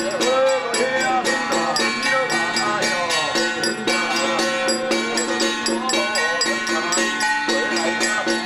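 Traditional temple ritual music: a metallic percussion struck quickly and evenly, about five or six strokes a second, with steady ringing tones under a wavering melody line.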